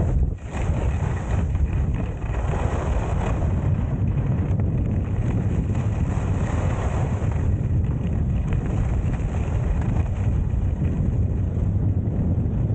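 Steady low wind buffeting on the microphone of a camera carried by a skier going downhill, over the hiss of skis running on packed snow; it dips briefly about half a second in.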